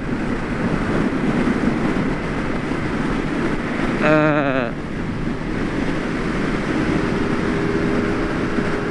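Benelli Leoncino 500 parallel-twin motorcycle cruising at motorway speed: a steady rush of wind over the helmet microphone mixed with engine and road noise. A short wordless vocal sound from the rider comes about four seconds in.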